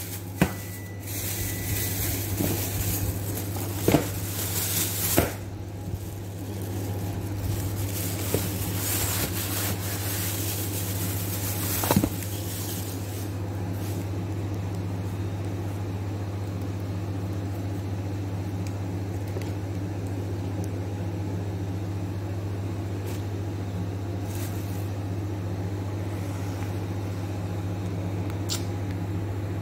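A steady low machine hum, with a few knocks and rustles in the first twelve seconds.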